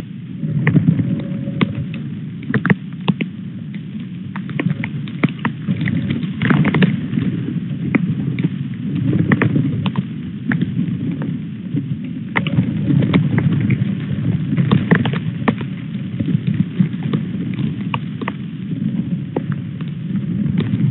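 Wind buffeting the nest camera's microphone in a low rumble, with frequent sharp ticks of hail striking the camera.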